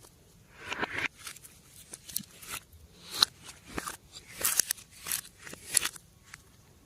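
Slime being squished and worked by hand, giving irregular sticky clicks, crackles and small pops.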